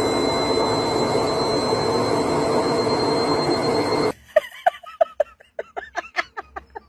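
Front-loading washing machine running its spin cycle: a steady loud rush with a thin high whine, cutting off suddenly about four seconds in. A quicker run of short chirps follows, about five a second.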